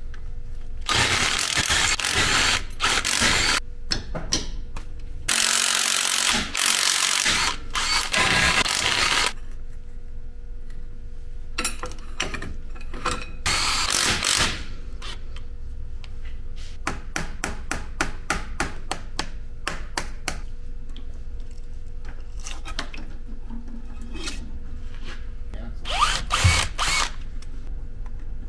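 A power drill runs in a few bursts, two of them lasting several seconds. A run of quick, even ratchet clicks follows, and there is a sharp metallic knock near the end.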